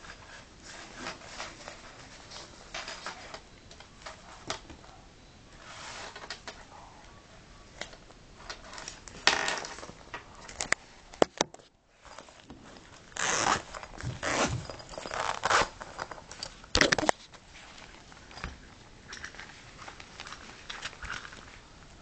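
Zippers on a small fabric sports bag being pulled open and shut, a series of rasping strokes with handling and rustling between them, louder in the second half.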